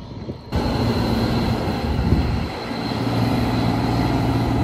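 A vehicle engine running steadily with a low hum, starting suddenly about half a second in.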